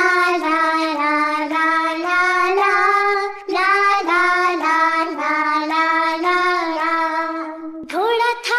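Children's song soundtrack: a high, child-like singing voice carries a melody in short held notes, with a short break about three and a half seconds in and another near the end.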